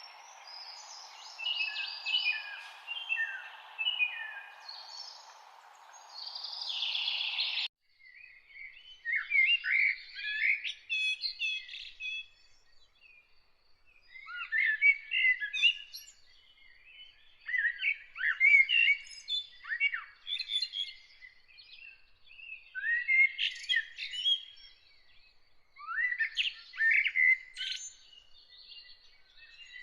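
Songbirds singing in short, sweeping, chirping phrases that repeat every couple of seconds. A steady hiss under the first few seconds cuts off abruptly about eight seconds in, leaving clear birdsong.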